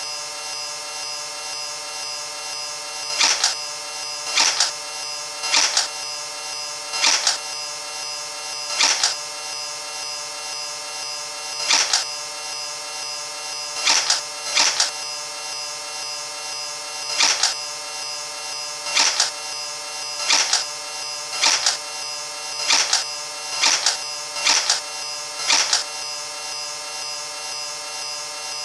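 Nerf-style foam-dart blaster being primed and fired again and again, about sixteen sharp double clacks a second or two apart, over a steady hum.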